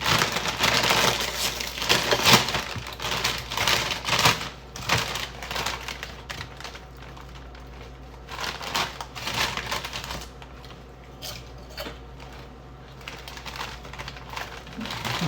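A crinkly snack bag rustling as it is opened and handled, in dense crackles for the first few seconds, then quieter scattered rustles and clicks.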